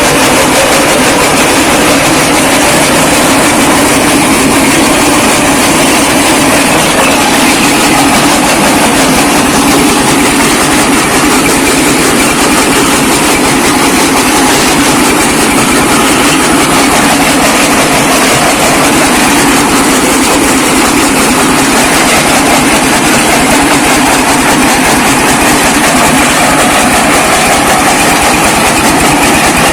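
Small brick-breaking machine running and crushing bricks: a loud, steady rattling grind.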